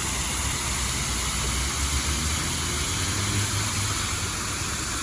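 Steady background of vehicle traffic: a low engine hum under an even hiss.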